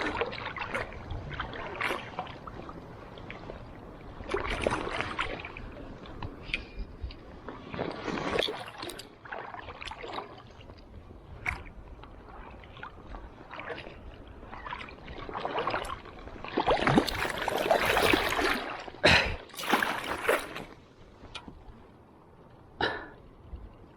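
River water splashing and sloshing in irregular bursts, loudest in a cluster of splashes about two-thirds of the way through.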